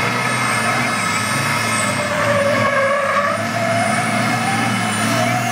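Race truck's diesel engine running hard as it spins doughnuts on the asphalt, its pitch wavering up and down as it goes round, with other race truck engines in the background.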